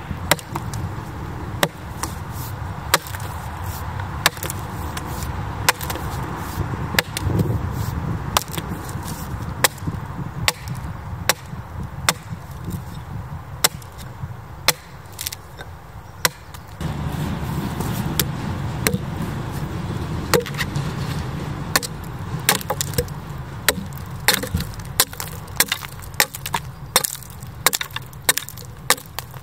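An axe chopping into a red oak board as it is hewed, sharp chops roughly once a second that come faster in the last several seconds. A steady low rumble runs underneath.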